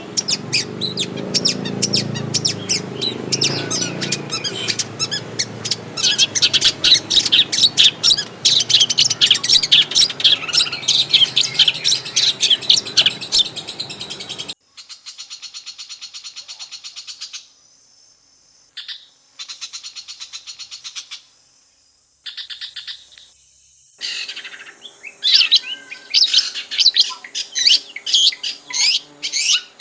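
Long-tailed shrike (cendet) singing a dense run of quick high chirps and trills over a low background rumble. About halfway the rumble cuts off abruptly. The song then comes in short bursts of fast rattling trills that stop and start suddenly, before fuller chirping returns near the end.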